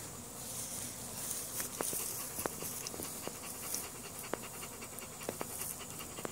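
A dog panting close to the microphone, with a few sharp clicks scattered through it.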